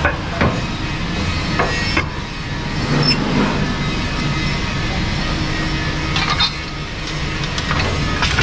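Pinch plate rolling machine running as it feeds a plate through to roll a cone, a steady drive noise broken by several sharp knocks.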